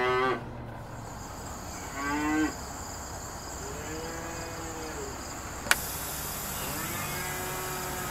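Cattle mooing, four calls: two short ones, then two longer, drawn-out ones. A single sharp click comes about two-thirds of the way through.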